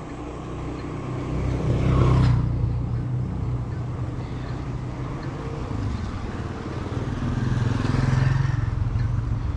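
Motor vehicles passing close by on a road, their engine noise building to a peak about two seconds in and again around eight seconds in.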